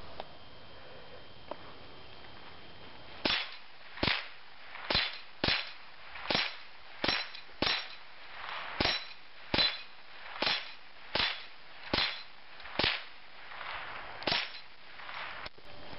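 A Remington Nylon 66 semi-automatic .22 rifle fires about fifteen quick shots, starting about three seconds in and spaced less than a second apart, as it knocks steel plates across a dueling tree.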